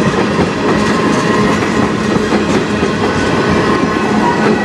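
Freight train tank cars rolling past at steady speed, their steel wheels rumbling and clattering on the rails.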